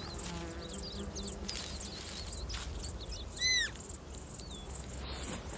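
A roe deer fawn gives one short, high-pitched bleat that rises and falls, about three and a half seconds in, with small faint chirps around it.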